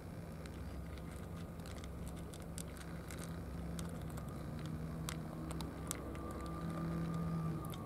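Cats crunching dry kibble from plastic trays: irregular sharp clicks, over a steady low hum.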